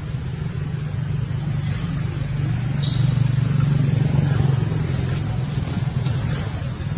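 Low, steady motor-vehicle engine drone that swells to its loudest about three seconds in and eases off again a second and a half later.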